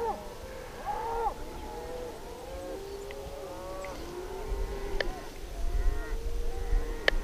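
A herd of cattle lowing, many drawn-out, arching calls overlapping one another in an unusual chorus that the angler finds surprising from cows. Two sharp clicks, about two seconds apart, and a low rumble sit under the calls.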